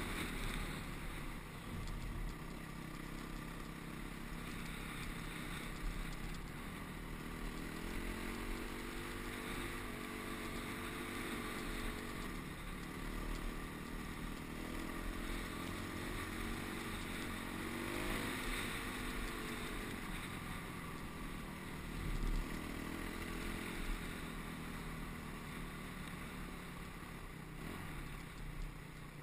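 Single-cylinder four-stroke engine of a Honda CRF250X trail bike running under way, its pitch rising and falling as the rider accelerates and eases off, heard from the rider's own bike with a low rumble of wind on the helmet camera.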